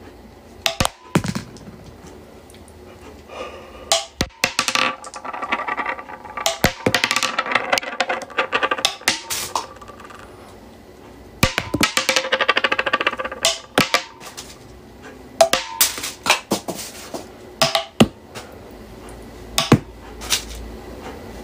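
Background music with sharp percussive clicks and knocks, and two longer stretches of quick, busy rhythmic notes.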